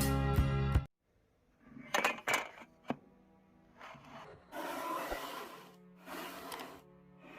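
Guitar music that cuts off abruptly under a second in, followed by a few sharp knocks and then two stretches of rough scraping from handwork on a building material.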